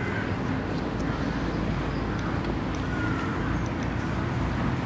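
Steady rumble of road traffic, a continuous low hum of passing cars with no clear single event.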